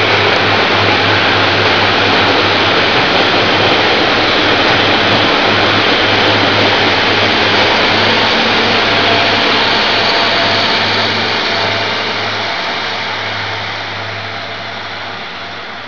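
Taiwan Railways DR2800 diesel multiple unit pulling out of the station, its diesel engines running with a steady low drone that fades over the last few seconds as the train draws away.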